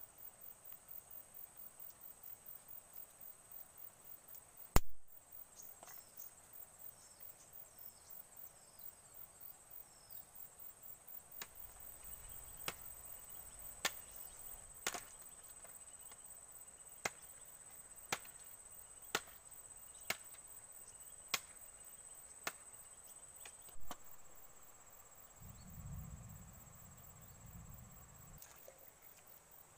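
Small fire of dry bamboo and sticks catching: sharp crackles and pops about once a second as the flames take hold, over a steady high-pitched insect trill. A single loud knock comes about five seconds in, and a low rumble near the end.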